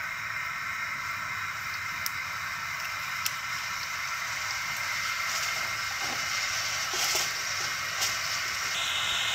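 Steady hiss of a gas burner heating a steel saucepan of water with tea leaves, growing slightly louder, with a few faint ticks.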